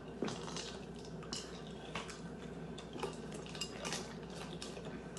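Ice cubes clinking against ceramic bowls as they are picked out by hand: a scatter of light, irregular clicks and knocks.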